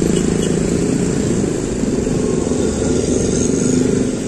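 Street traffic: a large coach's engine running as it moves slowly past, with motor scooters and cars passing close by. A steady low rumble that swells slightly near the end.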